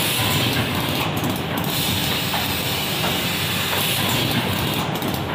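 Automatic box assembling machine running: a steady mechanical clatter with light clicks and a high hiss that drops out briefly twice, about a second in and near the end.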